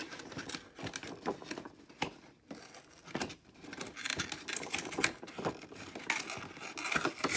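Cardboard toy box being worked open by hand at its top flap: irregular scratching, rustling and small tearing of the paperboard, busier a few seconds in.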